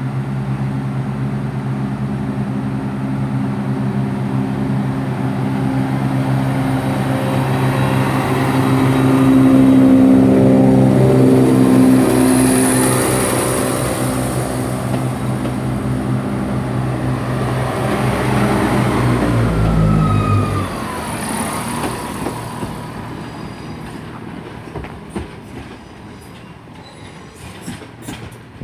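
Two coupled Class 170 Turbostar diesel multiple units pulling away under power, their underfloor diesel engines droning steadily. The drone is loudest about ten seconds in as the cars go by and falls away after about twenty seconds, leaving the wheels clicking over rail joints as the train draws off.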